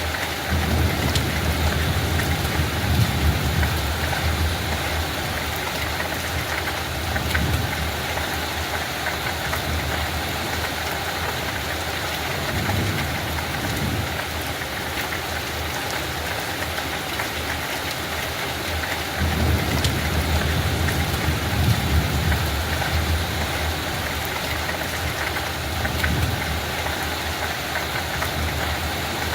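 Steady hiss of light rain falling. Twice, near the start and again about two-thirds through, a low rumble swells up under the rain for a few seconds.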